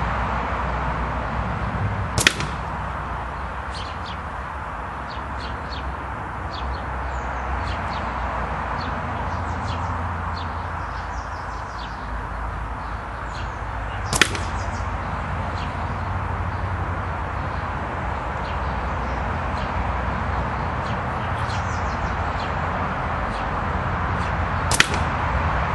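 Three single sharp cracks of a .177 pre-charged air rifle firing pellets, a Brocock Contour, about twelve and then ten seconds apart, over a steady outdoor background with birds chirping.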